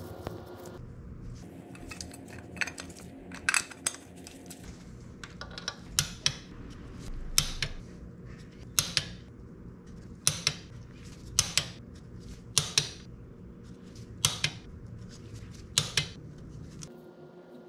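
Metal clutch parts clinking against each other as they are handled. The sharp clinks come mostly in quick pairs, about one pair every second and a quarter, with a few scattered clinks before them.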